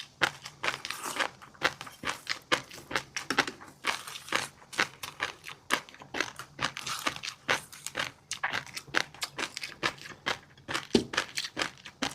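Close-miked chewing of a fish roe and crunchy seafood dish: a rapid, irregular stream of crisp crackles and pops, several a second.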